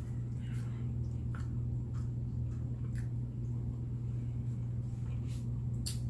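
A person chewing food close to the microphone, with scattered short mouth clicks and smacks about once a second over a steady low hum.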